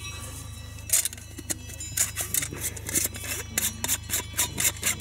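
Aluminium camping cook set being unstacked: pans and the stove's windshield knock and scrape against each other in a quick, irregular run of light metallic clinks, starting about a second in.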